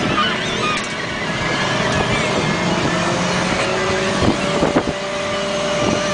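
Garbage truck's diesel engine running, heard from inside the cab. About three seconds in a steady whine joins and holds, with a few short clanks in between.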